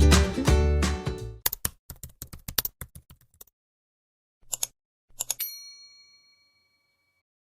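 Upbeat plucked-string background music that stops about a second and a half in, followed by a run of quick clicks, then two short clattering bursts, the second ending in a bell-like ding that rings on and fades.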